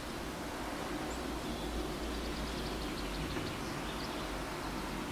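Steady background ambience, a low rumble and hiss, with a few faint, short high chirps scattered through it.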